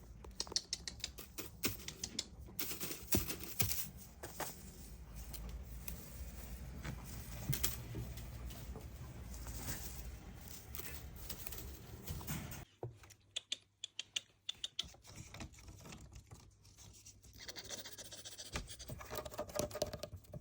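Irregular light clicks and scratching, like a cat's claws and a chewed toy batted about during play. A low background rumble stops suddenly about two-thirds of the way through.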